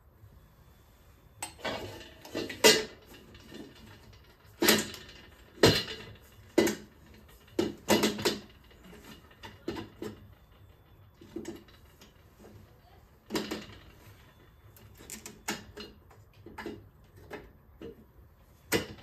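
Hand tools and metal engine parts clinking and knocking at irregular intervals during hands-on work around a turbocharger in an engine bay. A few sharp knocks stand out, the loudest about two and a half seconds in.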